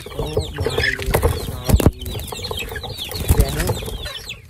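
Chickens clucking and squawking as they crowd round and peck at feed held in a hand, with wings flapping and many short high calls over the top. Several sharp knocks come from pecking and jostling, the loudest just under two seconds in.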